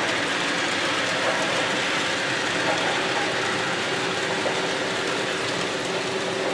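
O-scale model freight train rolling on three-rail track: a steady clatter and whir of wheels and gear-driven motors. A faint steady hum joins about three seconds in.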